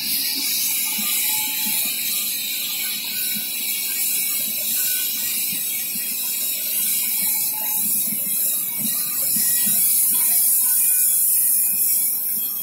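Coating and lamination machine running, its rollers carrying film: a steady high hiss with a faint, irregular mechanical rattle underneath.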